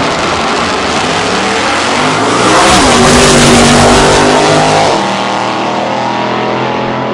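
Two drag-racing pickup trucks launching off the line at full throttle and accelerating down the strip. The engine noise swells to its loudest from about two and a half to five seconds in, then drops back to a steadier, lower engine drone.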